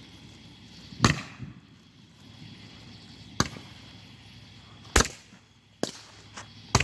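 Five short, sharp bangs at irregular intervals of one to two seconds; the first, about a second in, and the fourth, about five seconds in, are the loudest.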